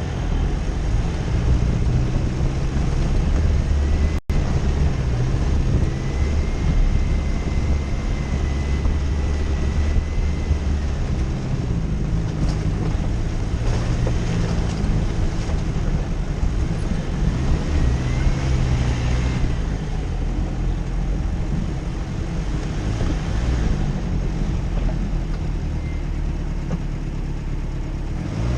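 Jeep Cherokee engine running under way off-road, a steady low drone that rises and falls with the throttle. A faint high whine comes and goes over it, with a momentary break about four seconds in.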